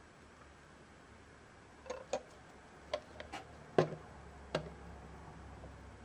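Hollow gold-plastic lucky-cat figurine handled and set down on a wooden table: a few light, uneven plastic clicks and knocks, the loudest just before four seconds in.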